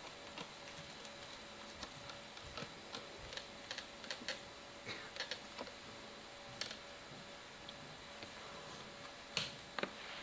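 Faint, irregular small clicks and taps, with a couple of louder ones near the end, over a faint steady hum.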